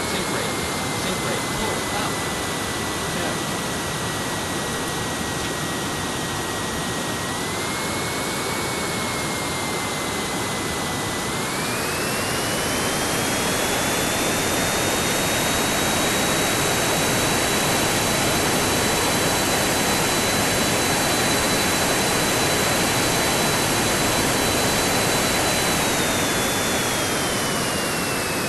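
Boeing 727's three Pratt & Whitney JT8D turbofan engines running during landing: a loud, steady jet rush with a thin high whine. The whine climbs sharply about eleven seconds in and grows a little louder, holds, then falls away near the end.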